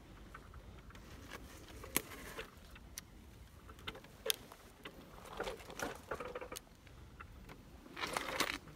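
Bramble stems and leaves rustling and scraping against a wheelchair trike as it squeezes through an overgrown wooden gate, with scattered sharp clicks and snaps. The rustling comes in short bouts, the loudest near the end.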